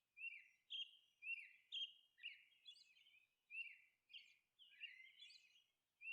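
Faint bird chirping: a run of short, quick chirps, about two a second, with a brief lull around the middle.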